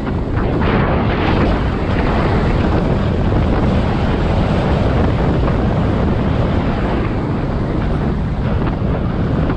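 Wind rushing over the camera's microphone as an electric scooter is ridden at speed: a steady, loud rumble of wind noise.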